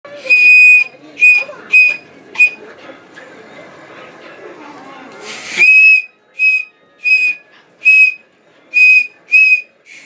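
Toddler blowing a small plastic Thomas the Tank Engine toy train whistle, eleven toots of one steady high note. Four come quickly at the start, then a pause. A longer, breathy blast comes about halfway through, followed by six more short toots.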